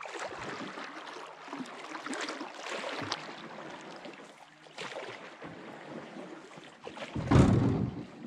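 Canoe being paddled in close along a rocky shoreline: water sloshing with small splashes and knocks. A louder, deeper rush lasting under a second comes near the end as the bow reaches the rocks.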